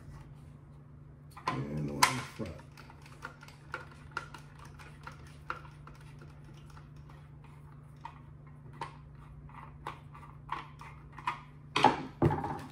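Small screwdriver backing a screw out of the plastic chassis of a Kenner Ecto-1 toy car: a string of small, irregular clicks and ticks from the screw threads and the plastic being handled. A few louder, sharper knocks near the end as the screwdriver and toy are set against the desk.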